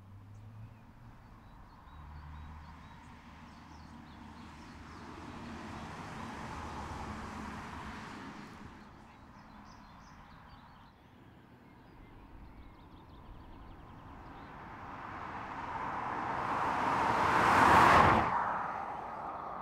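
A Škoda Superb Combi estate car driving past twice, its tyre and engine noise swelling and fading. The second pass comes close and is much louder, peaking near the end and dropping away quickly.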